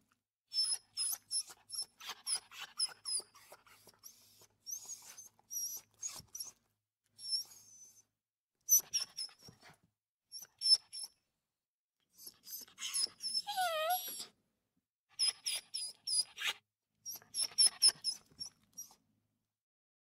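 Dog whimpering in runs of short, high squeaks, with one longer wavering whine about 13 seconds in.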